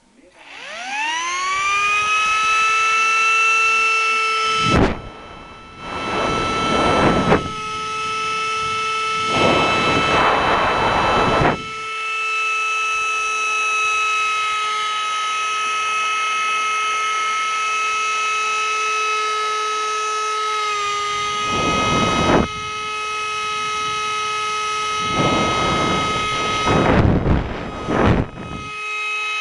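Small 3D-printed centrifugal blower spinning up, its high whine rising quickly in pitch over the first two seconds and then holding steady at speed. Several times the steady whine is joined by a few seconds of loud rushing air noise.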